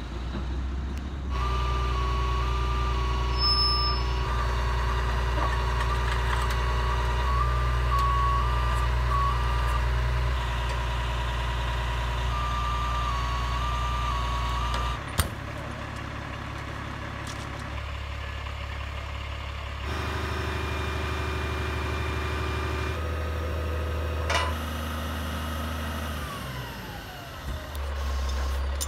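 Utility boom truck's engine running steadily, with a high tone stepping back and forth between two pitches over it, like a backup alarm. There is one sharp knock about halfway, and near the end a high whine glides down in pitch.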